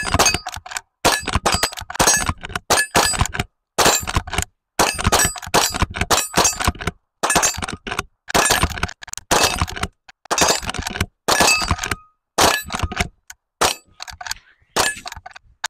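Two Henry lever-action .22 LR rifles firing rapid shots, one after another, at a steel gong. The gong rings with a bright, high clang after many of the hits.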